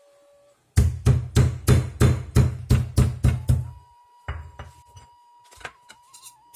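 Boiled jengkol beans being pounded flat with a stone pestle on a stone grinding slab (batu giling). There is a quick run of heavy knocks, about three or four a second, for about three seconds, then a few lighter knocks.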